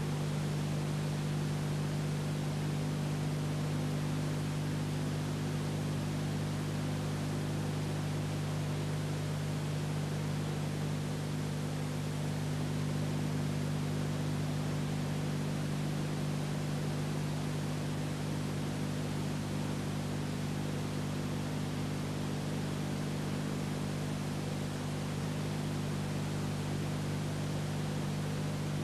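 Steady hiss with a constant low hum and nothing else: the noise floor of an old silent film copied from videotape, carrying no recorded sound of its own.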